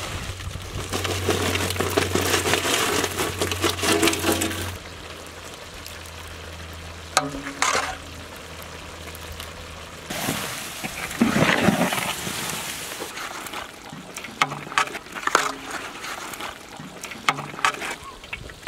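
Fried chicken pieces tipped from a large metal tray into a big pot of hot creamy sauce, splashing into the liquid for about five seconds. After that come quieter sloshing and short scraping sounds as the sauce is ladled over and stirred with a long-handled ladle.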